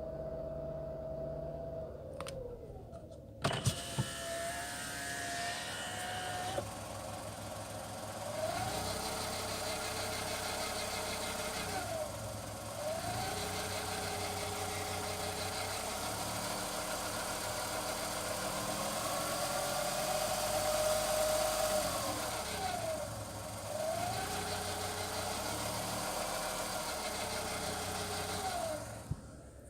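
Škoda Fabia 1.2 HTP three-cylinder petrol engine running warm, its pitch rising and falling several times as the engine speed changes. Over the engine runs a grinding, scraping noise around 1300 rpm that the owner hears only when the engine is warm. A few sharp clicks come about three to four seconds in.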